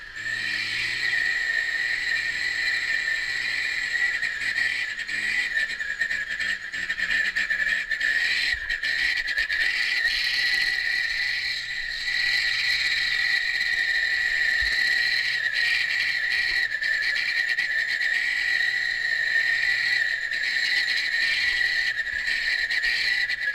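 A steady, high-pitched drone of insects that holds unbroken throughout, with the truck's engine humming low and faint underneath.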